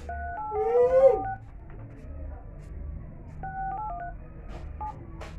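Smartphone keypad tones as a phone number is dialled: quick runs of short two-note beeps, one per key, a burst of them at the start and another about three and a half seconds in, with a few single beeps after. A brief rising-and-falling vocal sound overlaps the first run about a second in.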